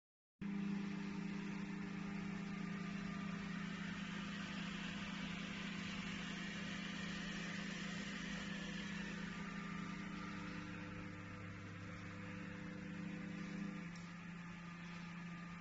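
Steady low electrical hum with a soft hiss over it, growing a little quieter about fourteen seconds in.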